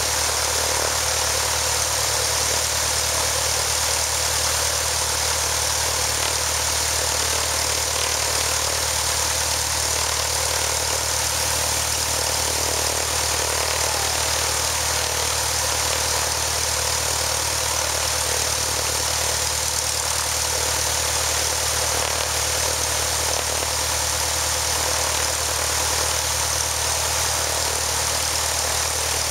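Light aircraft's piston engine turning its propeller, running steadily at a constant speed during its first run after an engine overhaul.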